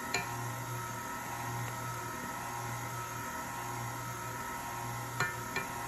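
A plastic measuring spoon clicks against a glass spice jar and bowl, once just after the start and twice near the end, over a steady low hum.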